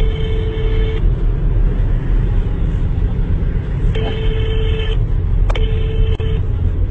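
A telephone ringback tone sounds three times, each a steady beep of about a second, from an outgoing call on the car's speakerphone. Under it runs the steady road and engine rumble of a moving car's cabin.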